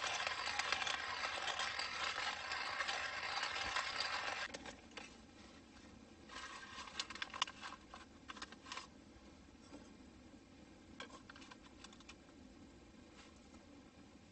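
Hand-cranked coffee grinder crushing whole coffee beans, a steady gritty grinding that stops about four and a half seconds in. After it, a paper coffee filter crinkles with light clicks as it is pressed into a plastic pour-over cone.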